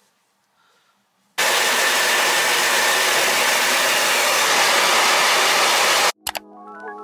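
Beauty Works hand-held hair dryer running with a steady, loud rushing blow, switching on suddenly about a second and a half in and cutting off abruptly about a second before the end.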